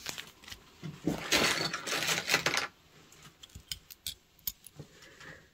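Costume jewelry being handled by hand: a rustling stretch with small metal clinks in the first half, then scattered light clicks and taps.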